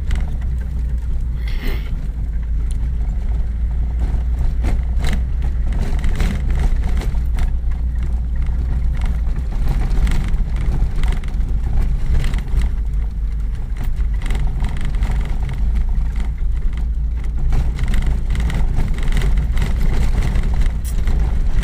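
Steady low rumble of an old car driving on a rutted dirt road, heard from inside the cab, with frequent short knocks and rattles all the way through as it goes over the bumps.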